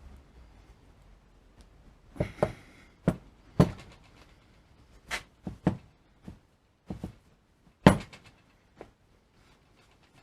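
An irregular series of about a dozen sharp knocks and clicks, like something being handled and set down on a hard surface, with the loudest one near the end.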